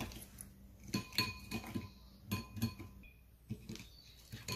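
Whisk beating eggs in a ceramic bowl, its wires clinking irregularly against the bowl, several of the clinks ringing briefly.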